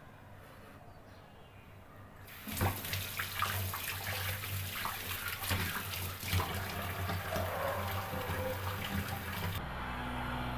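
Water running from a kitchen tap, turned on about two seconds in and off about a second before the end, with a steady low hum underneath.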